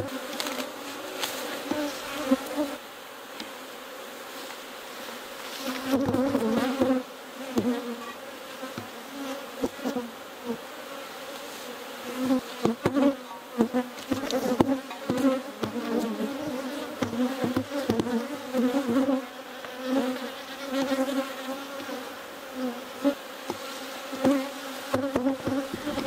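Swarming honeybees buzzing close around the microphone, a low buzz that swells and fades as bees pass near. Scattered knocks and clatter come from wooden hive boxes being handled and shifted.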